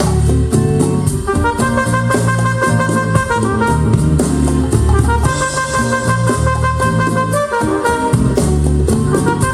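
Jazz-fusion music with brass, bass and drum kit, played back through KEF Q11 loudspeakers.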